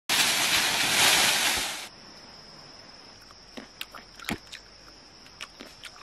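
A loud rushing noise for the first two seconds that cuts off abruptly. Quieter forest ambience follows, with a steady high-pitched insect drone and scattered crackles and clicks.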